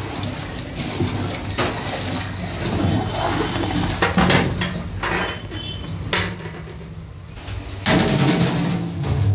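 Water pouring and splashing with a rushing sound, broken by a few knocks.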